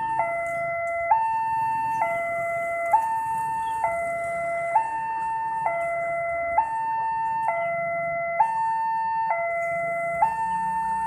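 Railway level-crossing warning alarm sounding its electronic two-tone signal, a higher and a lower note alternating about every second with a short click at each change, while the crossing's lamps and barriers warn of an approaching train.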